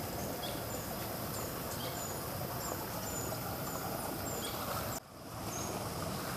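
Outdoor rural ambience: a steady hiss with short, high chirps repeating about every half second. The sound drops out for a moment about five seconds in, then returns.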